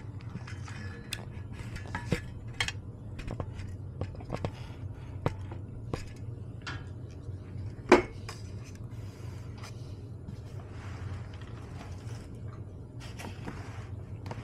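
Tableware clinking and clattering: a run of small knocks and clicks of utensils against bowls and dishes, one sharper knock about eight seconds in, over a low steady hum.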